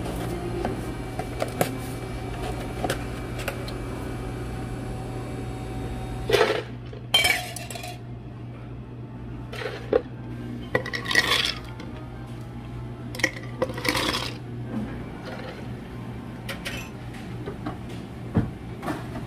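Soft clicks over a steady low hum, then from about six seconds in a series of loud clattering and clinking bursts as ice cubes are dropped into two tall glasses.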